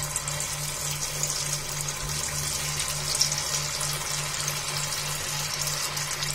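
Batter-coated cauliflower florets deep frying in hot oil in a kadai: a steady sizzle with fine crackling.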